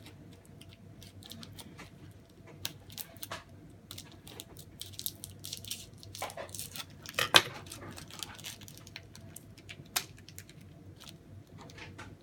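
Scattered light clicks, taps and rustles of small plastic kit pieces being handled on a table, with one louder knock about seven seconds in.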